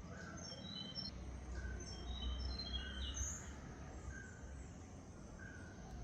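Small birds chirping: quick runs of short, high notes crowded into the first half, and a lower note repeating about once a second throughout. A low rumble runs underneath.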